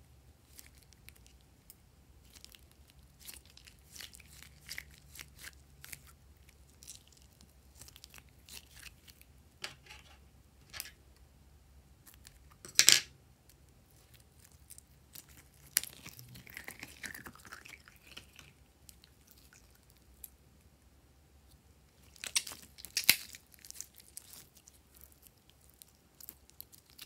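A slime-filled rubber balloon squeezed and peeled open by hand, then clear slime pulled out of it: small sticky crackles and squishes, one sharp snap about halfway through, and a loud burst of crackling toward the end.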